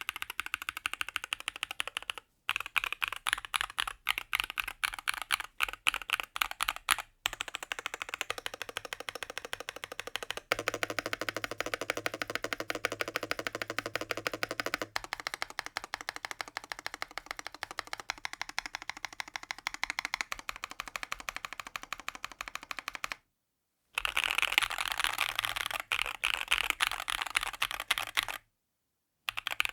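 Fast typing on a Rexus DAXA M61/M64 mechanical keyboard: a dense run of clacking keystrokes. It comes in several takes joined by brief dead-silent cuts, the longest about 23 seconds in, and the tone shifts between takes as the plate and case change.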